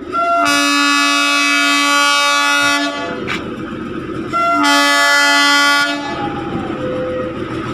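Darjeeling toy train sounding two long, steady horn blasts, the second shorter, with a sharp click between them and a rumbling noise under and after.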